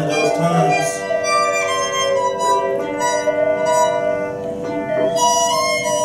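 Small live ensemble playing long, overlapping held notes, with a violin among them and one line slowly sliding in pitch.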